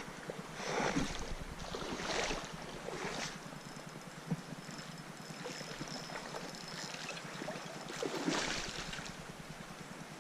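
Mountain stream water running steadily, with a few brief louder swells of noise over it.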